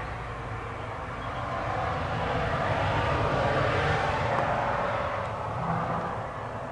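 Engine noise of a passing vehicle: a broad rushing sound over a low hum that swells to a peak about halfway through, then fades.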